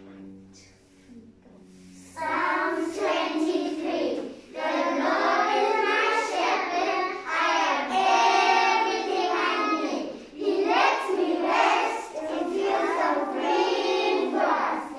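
A group of young children singing a scripture verse together in unison, starting about two seconds in.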